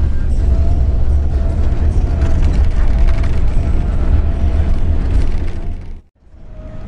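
Steady low rumble of a moving bus, engine and road noise together. About six seconds in it drops sharply to near silence and then fades back up.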